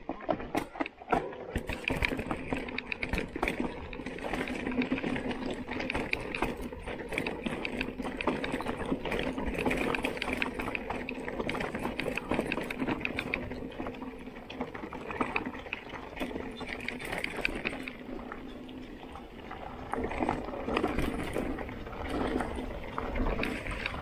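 Commencal Meta mountain bike rolling over a rocky dirt trail: a constant clatter of frame, chain and tyres on stones and roots, with a steady buzz that fits the rear hub freewheeling while coasting. It eases off a little in the middle and then picks up again.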